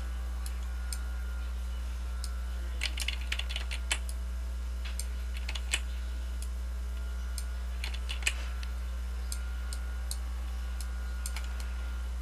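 Scattered clicks of computer keyboard keys, bunched into quick clusters about three seconds and eight seconds in, over a steady low electrical hum.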